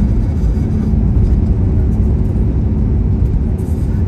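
Steady low rumble of road and engine noise heard inside a car's cabin at highway speed.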